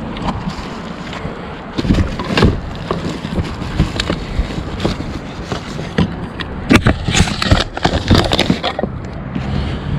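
Irregular knocks, rattles and clatter of rummaging through curbside recycling and garbage, over a steady outdoor rumble; the busiest clatter comes about two seconds in and again around seven to eight seconds.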